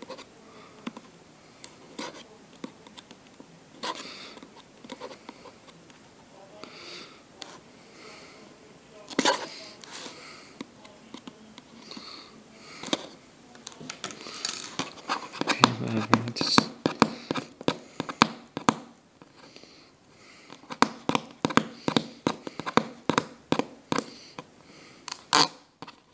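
Small scissors snipping and picking at packing tape on a cardboard tablet box, with handling scrapes and clicks that come sparsely at first and then thick and fast in the second half.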